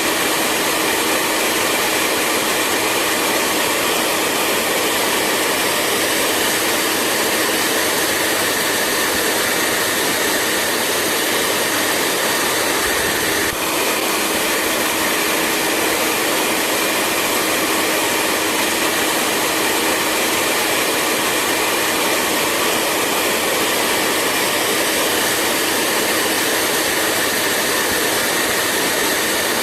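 Hair dryer running steadily: a constant airy rush from the fan with a faint steady hum and whine under it, with one tiny blip about halfway through.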